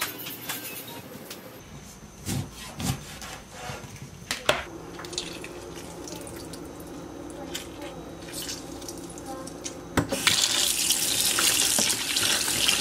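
A few scattered knocks and clatters of kitchen handling come first. About ten seconds in, the kitchen tap comes on and runs in a steady stream into a plastic bowl of cut raw chicken in a stainless steel sink as the chicken is rinsed by hand.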